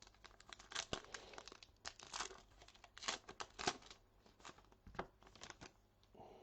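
A 2019 Topps Heritage trading card pack wrapper being torn open and crinkled: a run of irregular sharp crackles and rips.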